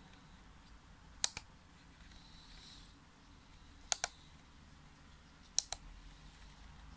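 Sharp plastic clicks from the DSO-150 oscilloscope's tactile push buttons and ADJ rotary encoder knob being worked by hand: three quick double clicks, a little over a second in, about four seconds in and near the end, with a faint rub of the fingers on the knob in between.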